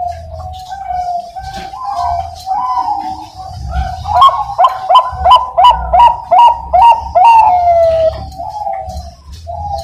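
Zebra dove (Bangkok perkutut) cooing, with a run of about seven loud, clipped coos in quick succession in the middle, over continuous wavering cooing from other doves.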